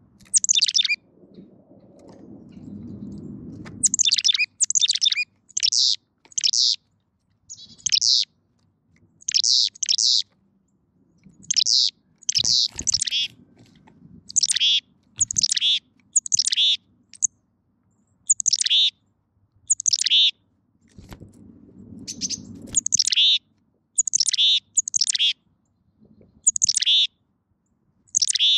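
Carolina chickadee calling: a long run of short, high notes that each fall in pitch, often two or three in quick succession. Low rustling and a few sharp knocks come from close to the microphone, in the middle and again later.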